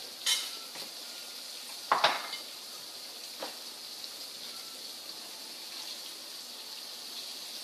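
Coconut-breaded shrimp frying in hot oil in a pan, a steady sizzle, with a few knocks of kitchenware, the loudest about two seconds in.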